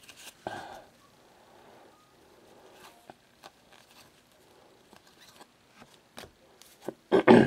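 Panini Victory Lane NASCAR trading cards handled by hand: soft clicks and rustles as cards are slid and flipped one behind another, with a louder rustle near the end.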